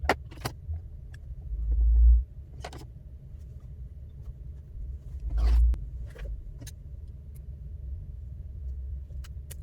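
Scattered light clicks and taps of small parts and tools being handled during iPad reassembly, over a steady low rumble. Two louder low thuds come about two seconds in and again at about five and a half seconds.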